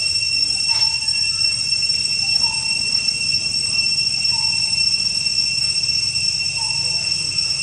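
Steady, high-pitched drone of insects in tropical forest, continuous and unbroken, with a short pitched note repeating about every two seconds.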